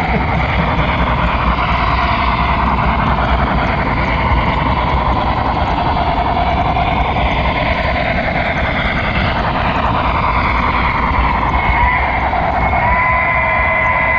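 HO scale model train running, heard from a camera riding on the flatcar pushed just ahead of the locomotive: the wheels roll on the track and the locomotive's motor runs, making a steady rolling noise. About twelve seconds in, a thin high squeal comes in as the train takes a curve.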